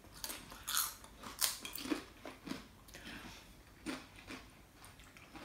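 Cheese-flavoured corn chips being bitten and chewed: irregular crisp crunches, closer together in the first couple of seconds and sparser toward the end.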